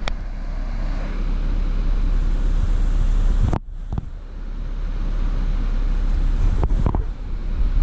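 Vehicle driving on a rough dirt road: a steady rumble of engine and tyres, breaking off for a moment about three and a half seconds in.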